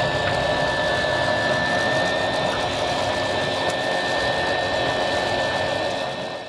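Electric sheet winch running under load with a steady high whine, winding in the genoa sheet, then stopping abruptly at the very end.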